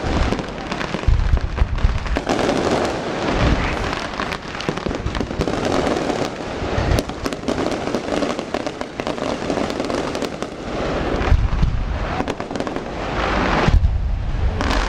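Fireworks display: dense, rapid crackling and popping, punctuated every few seconds by deep booms of shells bursting.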